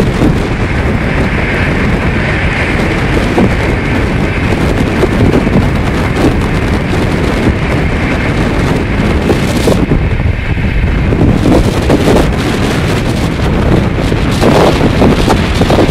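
Wind buffeting the microphone at the open door of a Rajdhani Express coach running at speed, over the steady rumble of the train on the track.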